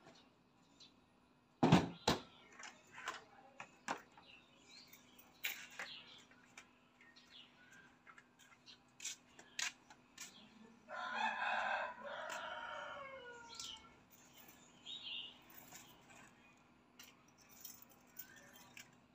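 A rooster crows once, about eleven seconds in, a call of about two and a half seconds that falls away at the end. Around it come scattered sharp clicks and knocks as a scooter and a helmet are handled, the loudest a pair about two seconds in.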